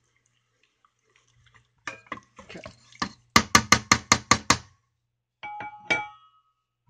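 A spoon stirring rice and liquid in a rice cooker's inner pot, scraping and then knocking quickly against the pot about eight times; near the end two sharper taps leave a brief ringing tone.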